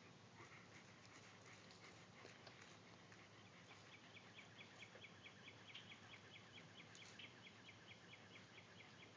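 Near silence, with faint high chirps that settle, about three seconds in, into an even series of about four to five a second.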